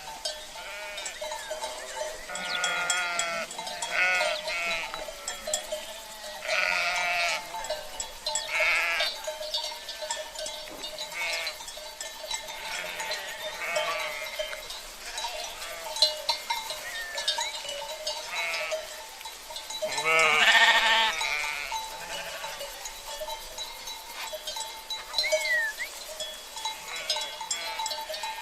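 A flock of sheep bleating repeatedly, several quavering calls overlapping, the loudest about twenty seconds in, over a steady ringing of livestock bells.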